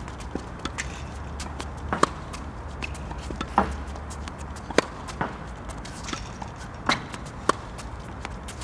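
Tennis rally on a hard court: a ball being struck by rackets and bouncing, as sharp pops every second or two, several louder than the rest.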